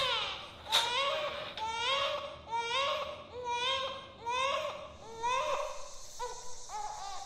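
A baby crying in short repeated cries, about two a second, each rising and then falling in pitch.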